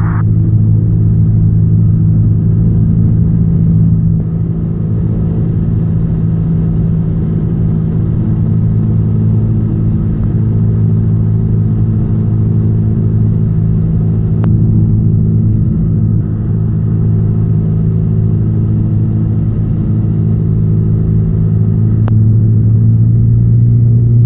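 Cessna 172N's four-cylinder Lycoming O-320 engine and propeller droning steadily in the cabin on final approach, at reduced power for the landing. Two faint clicks sound over it in the second half.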